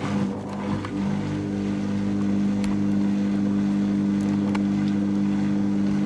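Dyson Contrarotator CR01 washing machine running just after its cycle has started: a steady hum of several low tones over a rushing noise, with a few faint clicks.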